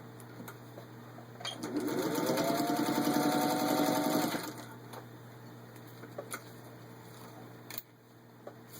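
Singer 201 sewing machine running up to speed and stitching through four layers of vinyl upholstery, its whine rising in pitch as it starts and holding a rapid steady needle rhythm for about three seconds before stopping. A few light clicks follow.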